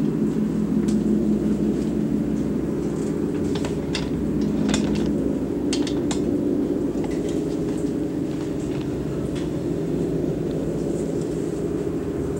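Paiste gongs played softly, a steady humming wash of many low overlapping tones. A few short bright metallic strikes sound over it around the middle.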